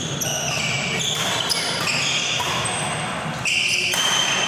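Badminton rally in a sports hall: players' shoes squeak on the court floor in short high chirps, again and again.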